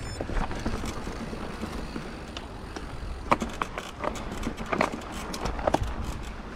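Scott Genius 950 mountain bike rolling along a dirt trail: tyre noise and a low rumble, with frequent sharp clicks, rattles and knocks from the bike going over bumps, the loudest about halfway through and a cluster more near the end.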